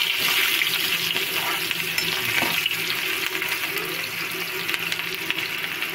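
Sliced onions sizzling steadily in hot oil in a karahi while a steel spoon stirs them, the onions frying toward golden brown.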